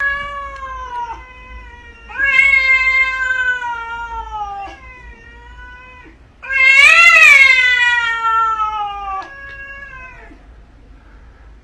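Domestic cat giving a series of long, drawn-out yowls that sag slowly in pitch. The loudest comes about seven seconds in, rising and then falling, as two cats face off.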